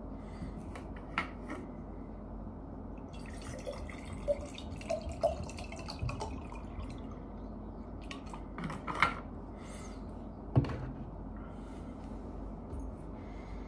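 Water poured from a plastic bottle into a glass, with small clinks and knocks as the bottle and glass are handled and set down on a table. The sharpest knock comes about ten and a half seconds in.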